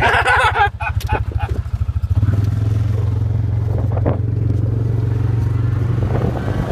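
Engine of a small utility vehicle running with an even low pulsing beat, then picking up speed about two seconds in and running faster and steadier as the vehicle accelerates.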